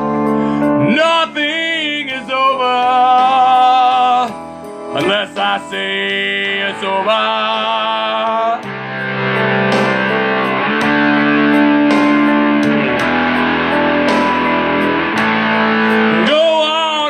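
Heavy blues-rock song with a man's rough lead vocal over guitar. About halfway through the voice drops out for a denser instrumental stretch, and the singing comes back near the end.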